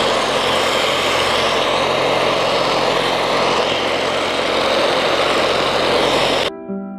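Corded electric polisher running steadily at speed, its flannel-wrapped pad buffing polish on bright metal, with a steady motor hum under the pad noise. It cuts off abruptly near the end, and soft piano music begins.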